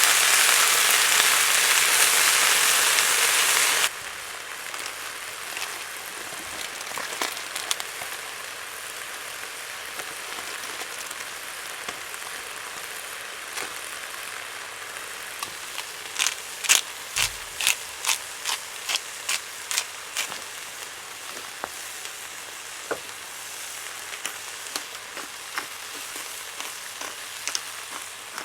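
Food sizzling in a pan over a wood fire, loud at first and dropping abruptly to a quieter sizzle about four seconds in. Sharp pops and crackles run through it, with a quick cluster of them around the middle.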